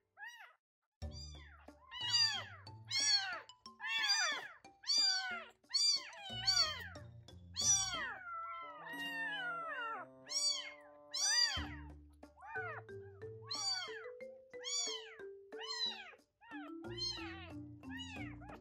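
Newborn kitten crying in short, high mews, one or two a second, while it refuses the milk bottle; one longer, falling cry comes about eight seconds in. Background music plays underneath.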